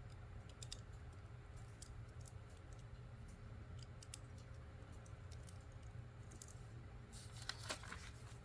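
LEGO plastic pieces being handled and pressed together: scattered faint clicks, with a busier cluster of clicks near the end, over a low steady hum.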